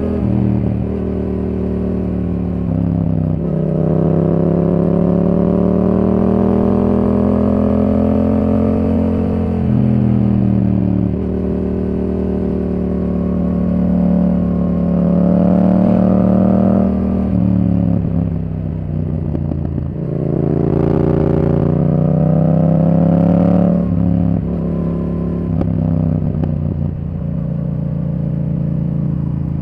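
Yamaha R7's parallel-twin engine running through a Yoshimura R77 exhaust while the bike is ridden, its pitch rising under throttle and dropping back again and again.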